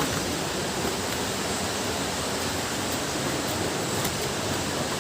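Steady rushing of a waterfall, an even roar of falling water with no change in level.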